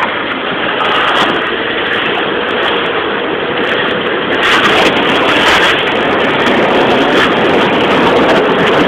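Car driving at speed on a wet dirt road, heard from inside the cabin: steady tyre, road and engine noise with scattered sharp ticks.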